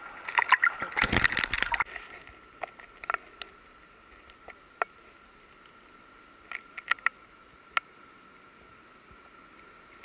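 Water splashing and sloshing close against an action camera held in the sea for about two seconds, then a quiet hiss with a faint steady high tone and a few short sharp clicks.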